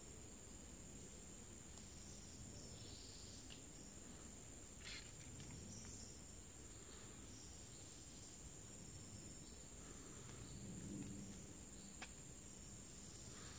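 Faint, steady high-pitched insect trill with a few soft clicks over it.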